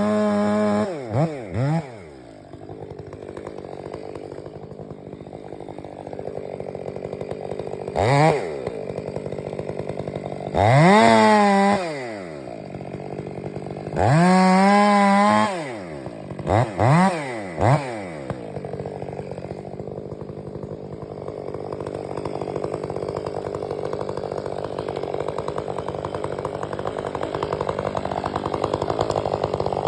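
Stihl 500i two-stroke, fuel-injected chainsaw dropping from high revs to idle about half a second in, then idling. The idle is broken by quick throttle blips and by two full-throttle runs of about a second and a half each near the middle.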